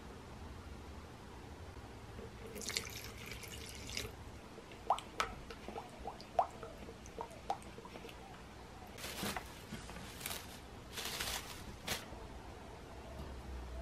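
Wood glue and water being stirred by hand in a plastic bowl: a run of small liquid plops and drips. Near the end come several short crinkling rustles of plastic cling wrap.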